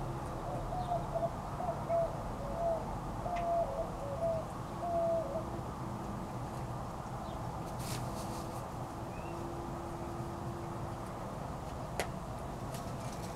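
A bird calling a run of short, low notes, repeated for about five seconds and then stopping. A single sharp click comes near the end.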